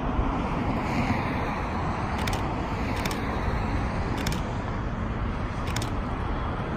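Steady rumble of a distant Boeing 787-9 airliner's jet engines as it lands, mixed with road traffic noise. A few faint, sharp clicks come at uneven intervals.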